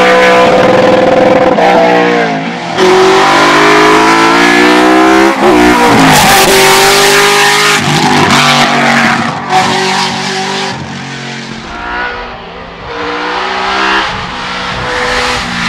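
Lotus-built 5.7-litre LT5 32-valve V8 of an Opel Kadett C Coupé hillclimb car at full race pace, its pitch climbing and dropping back sharply again and again through gearshifts and lifts for corners. It grows quieter for a few seconds about two-thirds of the way through, then loud again.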